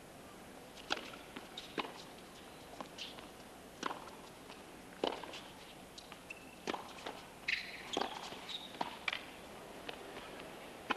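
Tennis ball struck back and forth with rackets in a serve and rally on a hard court: sharp hits about a second apart, with a few short high squeaks of shoes on the court among them.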